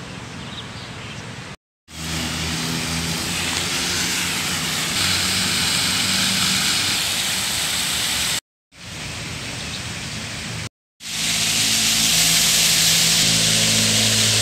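Rows of small fountain jets splashing onto paving: a steady rush of falling water over a low traffic hum. It comes in a few short stretches that cut off suddenly.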